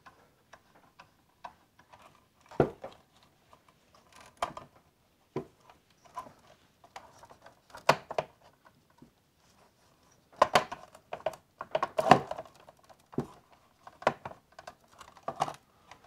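Irregular clicks, knocks and light scrapes as the Creality Ender 3 V2's power supply unit and its housing are handled and pushed against the printer frame to line up the mounting holes. The clicks are busier and a little louder in the second half.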